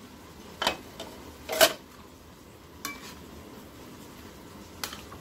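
Long metal spoon scraping and clinking against a stainless steel wok while stirring and tossing pancit miki noodles. Four sharp clinks, the second loudest, one about three seconds in ringing briefly, with soft stirring between them.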